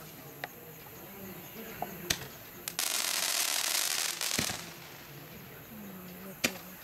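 8-shot Roman candle firing: single sharp shots a second or two apart, and about three seconds in a dense crackle of crackling stars lasting about a second and a half.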